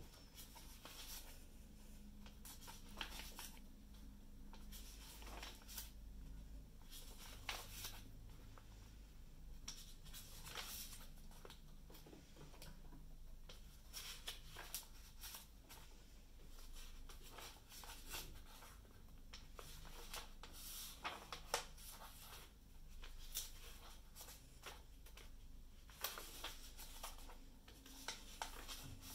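Sketchbook pages being turned by hand: faint rustling and crackling of paper, in clusters every few seconds as each page is lifted and flipped over.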